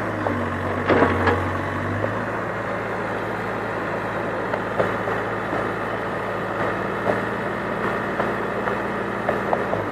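Excavator's diesel engine running steadily, with a few sharp knocks about a second in and scattered small clicks after.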